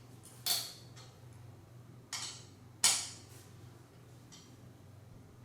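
Allen wrench turning and knocking on the steel bolts of a chair's seat mechanism: three short metallic clicks and scrapes, about half a second, two seconds and three seconds in, the last the loudest.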